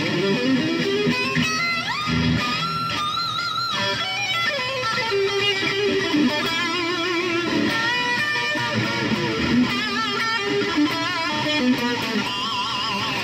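Gibson SG electric guitar played through a Boss Katana 100 Mk II amp with a distorted metal tone. It plays single-note lead lines with held notes shaken by wide vibrato and a quick upward slide about two seconds in.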